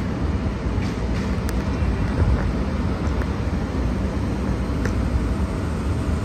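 Outdoor city street background: a steady low rumble of road traffic, with no single event standing out.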